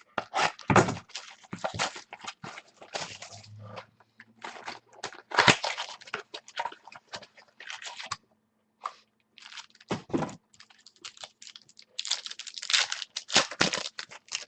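Football trading cards and their packaging being handled: irregular rustling, scraping and light tapping, with a couple of low thunks.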